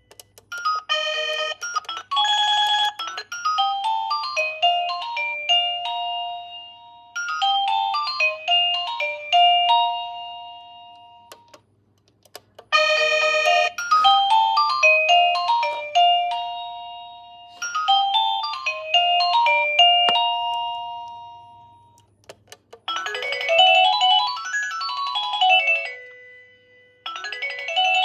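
Electronic doorbell chime playing its built-in tunes one after another: short melodies of clear electronic notes with brief pauses between them, ending in a quick run of notes that climbs and falls.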